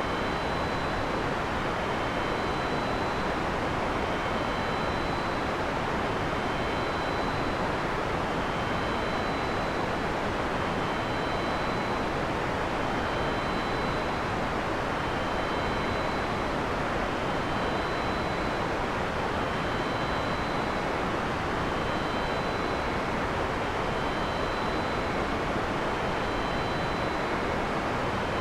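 Heavy rain falling in a steady, even rush, with no thunder. Faint short high tones recur about every two seconds.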